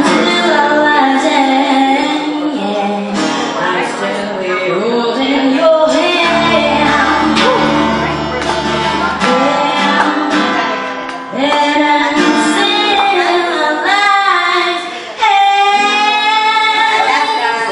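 A young woman singing while strumming an acoustic guitar; her voice wavers with vibrato and rises into a long held note near the end.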